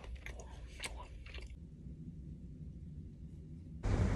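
Close-up chewing, with a metal spoon clicking against a small food tin a few times in the first second and a half; then only a faint low hum, until a louder noise starts suddenly near the end.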